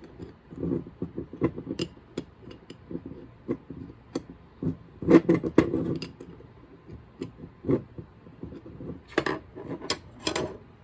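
Metal tools and spray-gun parts being handled on a workbench: a string of clinks, clicks and knocks, with a louder cluster about halfway through and a few more near the end.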